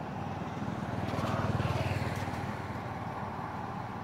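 A motor vehicle's engine passes by, growing loudest about a second and a half in and then fading, over steady outdoor background noise.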